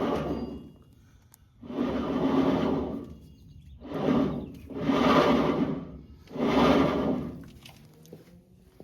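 Rear axle shaft of a 2007 Ford Ranger worked back and forth by hand: about five rubbing, scraping strokes of roughly a second each. The axle is being checked for end-to-end play, which feels like a lot.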